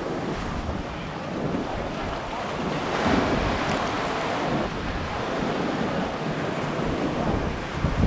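Ocean surf: small waves breaking and washing in among rocks onto the shore, swelling with a breaking wave about three seconds in. Wind rumbles on the microphone underneath.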